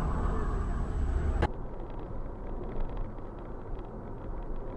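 Dashcam recording of a car's engine and tyre noise on the road. About a second and a half in, it cuts abruptly with a click to a quieter recording of a car cruising on a highway, heard inside the cabin, with faint ticking rattles.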